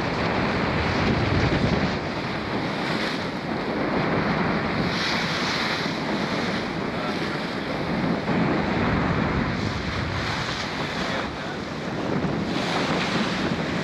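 Wind buffeting the microphone over the wash of sea water, aboard a schooner under sail, swelling and easing without any distinct event.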